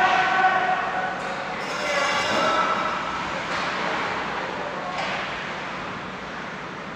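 Ice hockey game sounds in a rink: a steady wash of skates on ice and arena noise, a few sharp clacks of stick or puck, and voices calling out, loudest near the start.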